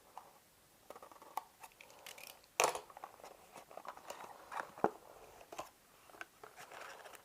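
Hands opening a sealed package: irregular crinkling and rustling of packaging with scattered sharp clicks, the loudest about two and a half seconds in.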